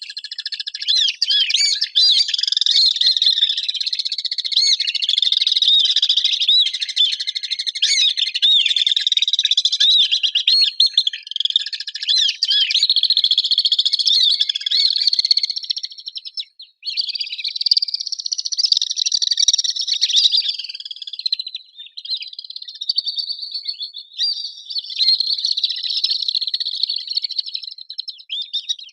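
Swifts calling: many high, shrill trilling calls overlapping almost without a break, with one brief pause about two-thirds of the way through.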